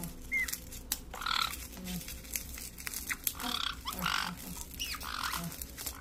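Black-headed and white-bellied caiques making several short squawks and a few brief chirps while nibbling a chew toy, with sharp clicks scattered among the calls.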